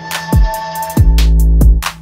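Background music: an electronic hip-hop beat with a deep bass line, heavy kick drums that fall in pitch, and hi-hat strokes.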